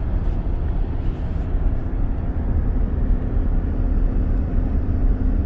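Steady road and engine noise from a car in motion, heard inside the cabin: a constant deep rumble without any break.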